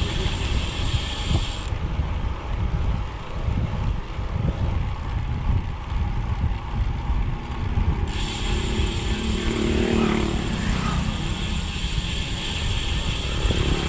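Rear freehub of an Elite ENT 50mm disc wheel buzzing while coasting downhill, over heavy wind and tyre rumble. The buzz cuts out about two seconds in and comes back about eight seconds in.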